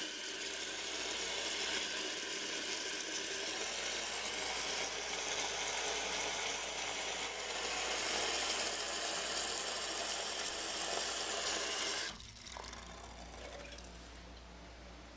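Fill valve of a 1987 Kohler Wellworth toilet tank hissing steadily as the tank refills. It shuts off abruptly about twelve seconds in, and a much fainter hiss tapers off after it.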